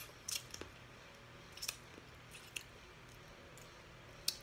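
Crawfish being peeled and eaten close to the microphone: a handful of short, sharp snaps and wet mouth smacks of shell and sucking, spaced about a second apart, the loudest near the end.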